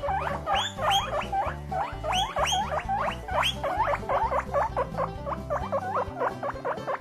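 A small animal squealing: a fast, unbroken run of short squeaks, each rising sharply in pitch, several a second.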